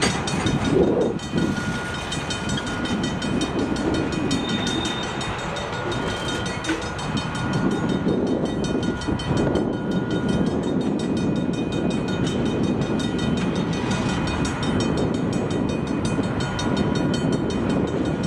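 Freight train tank cars rolling past over the rails: a steady rumble and rattle of wheels and running gear.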